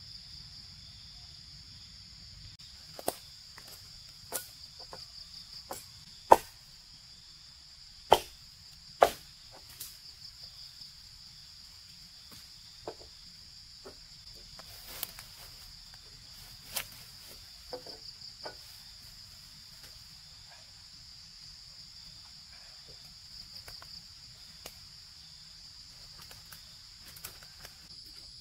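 A steady chorus of insects shrilling on one high, finely pulsing note. Irregular sharp knocks and taps fall over it, the loudest three in quick succession about a quarter of the way in.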